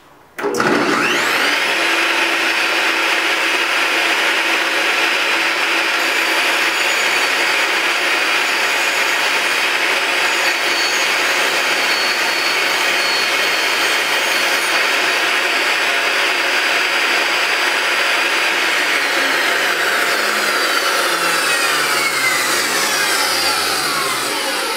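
Table saw with a small-kerf blade starting up and cutting a shallow 3/16-inch groove along a plywood drawer side, then switched off, its whine falling steadily in pitch as the blade coasts down over the last several seconds.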